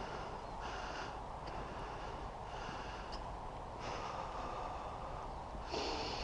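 A person breathing hard, a series of noisy breaths in and out roughly every second, unevenly spaced.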